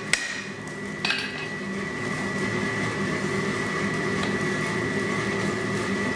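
A last hand-hammer blow on steel right at the start and a metallic clank about a second in, then a steady workshop hum with a thin, high, steady whine.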